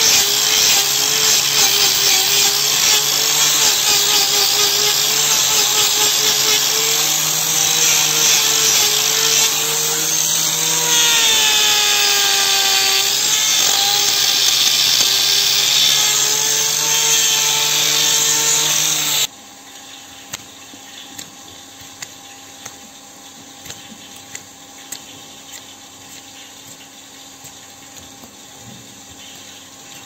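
Angle grinder with a hoof-trimming disc grinding down the horn of a cow's overgrown claw, its whine dipping and recovering as the disc bites in. About two-thirds through it stops abruptly, leaving quieter scraping and small clicks as the claw is pared with a hoof knife.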